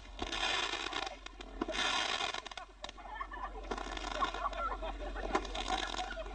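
Fireworks going off with two rushing hisses, each under a second long, in the first half. They are followed by a jumble of short, high-pitched cries and a few clicks.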